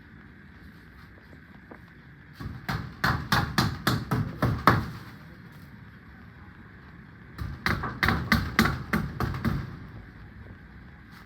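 Hammer blows in two runs of quick strikes, about four a second, each run lasting a couple of seconds, as nails are driven to fix wire mesh.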